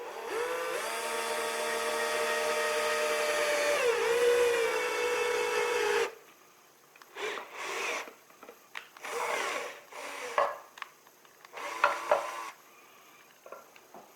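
A small electric power tool's motor spins up and runs with a steady whine. Its pitch dips briefly about four seconds in as it takes load, and it stops at about six seconds. Several short scraping rubs follow.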